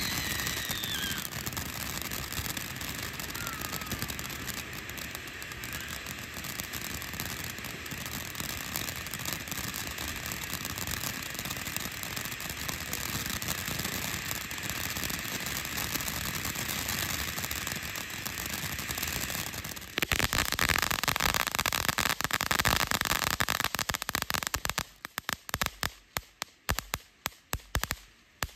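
Small fireworks going off in a fast, continuous crackle of pops. The crackle turns louder and denser about twenty seconds in, then breaks up into scattered single pops near the end.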